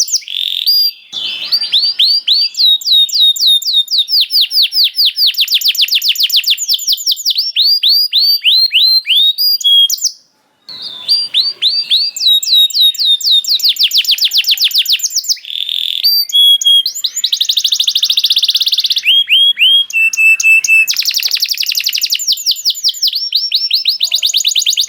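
Canary singing a long, loud song of rapid trills and rolls: runs of quick downward-sweeping notes alternate with very fast buzzing rolls. The song breaks off for about half a second around ten seconds in, then goes on.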